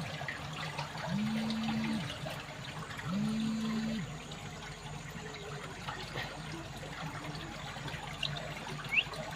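Stream water flowing steadily out of an underground tunnel, a smooth rumbling rush. In the first few seconds a low steady tone sounds three times, each lasting about a second, and a short rising chirp comes near the end.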